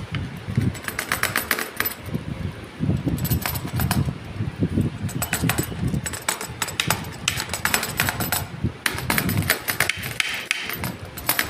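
Pizza-cutter wheel rolling through a baked pizza crust and against the metal baking tray underneath, in runs of quick clicks and scrapes a second or two long.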